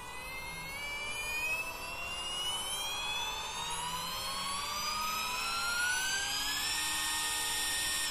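Stepper motor on an Allegro driver at 1/8 microstepping, being accelerated: a whine of several tones rising steadily in pitch together, which levels off and holds steady about a second before the end. The motor keeps up without stalling through the speed-up.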